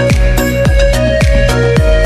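Background music with a steady beat of deep drum hits, about three a second, under a held melody tone.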